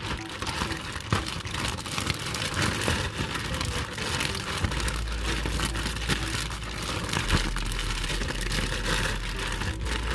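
Meat and vegetables sizzling in a hot pan: a dense, steady crackle.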